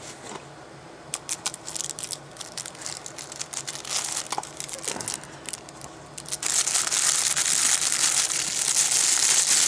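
Clear plastic bag crinkling as a wristwatch wrapped in it is handled and lifted out of its tin box. There are scattered crackles at first, then steady, louder crinkling from about six and a half seconds in.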